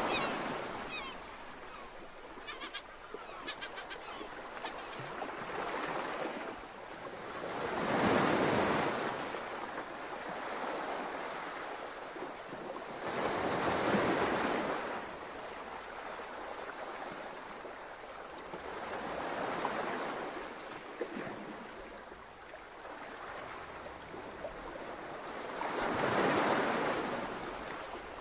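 Sea waves washing in, a broad rushing surge that rises and falls about every six seconds over a steady wash.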